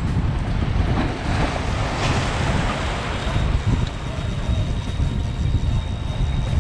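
Wind buffeting the microphone over the wash of choppy surf. A faint steady high whistle comes in about three seconds in.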